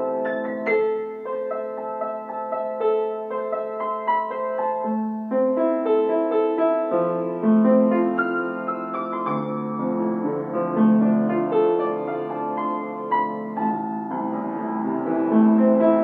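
Solo piano music: a melody of changing notes over long-held low notes.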